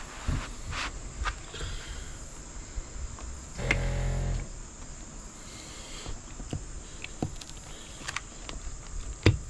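Knife scoring a plastic panel: a series of short scratching strokes as the blade is drawn along the cut lines. A brief low buzz comes about four seconds in, and a sharp click near the end.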